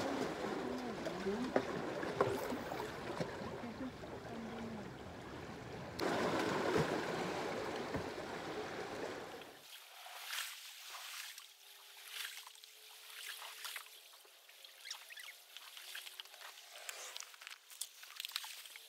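Outdoor wind and sea noise by a rocky shoreline, a steady rushing wash. About ten seconds in it drops abruptly to a much quieter background with scattered small clicks and taps.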